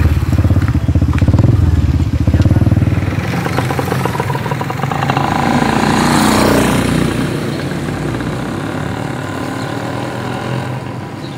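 Street traffic: a motor engine running close and loud at first, then a vehicle passing by about six seconds in, its pitch rising and then falling away.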